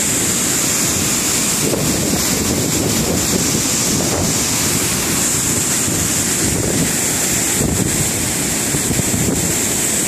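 Large waterfall crashing over rocks close by: a steady, deafening rush of falling water, with wind buffeting the microphone.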